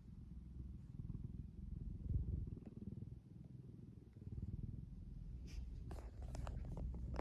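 Domestic cat snoring in its sleep: a low rasping rumble that swells and fades with its breathing. A few sharp clicks or rustles come near the end.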